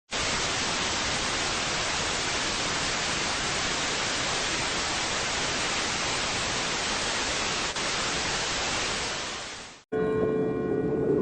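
Loud, steady broadcast static hiss, like a dead channel after sign-off, cutting off suddenly near the end. Several steady ringing tones then start, one of them rising in pitch.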